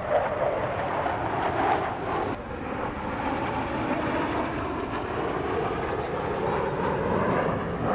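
Continuous jet engine noise from a formation of Russian fighter jets flying over, a steady rushing sound with slight swells.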